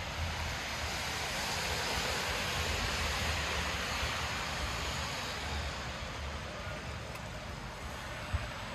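Wet city street in the rain: a steady hiss that swells for about five seconds, as a vehicle's tyres pass on the wet road, over a low traffic rumble. A single short knock comes near the end.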